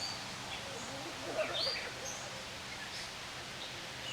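Several birds giving short chirps and whistled notes over a steady outdoor background hiss, with the busiest burst of calls about a second and a half in.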